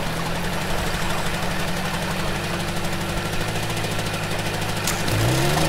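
Dirt bike engine running at low, steady revs, then revving up with a rising pitch near the end.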